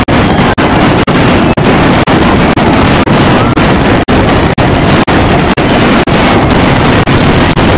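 Continuous loud, distorted wash of fireworks noise with no separate bangs standing out, chopped by very short dropouts about twice a second, like a stuttering digital loop.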